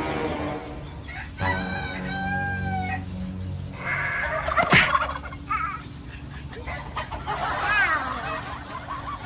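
Farmyard chickens and turkeys: a rooster crows once, about a second and a half in, with clucking and other bird calls after it and a single sharp click near the middle.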